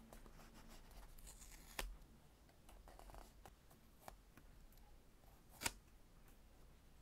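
Faint tabletop handling as tweezers lay small strips of tape onto a notebook's paper page: a light rustle and a few soft taps, with two sharper clicks, one about two seconds in and one a little before the end.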